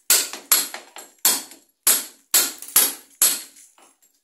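Club hammer driving a steel chisel into cement render, chipping it off the wall: about eight sharp strikes at roughly two a second, with a short pause near the end. The render is being cut back so the ceramic tile's edge trim can sit flush against the window grille.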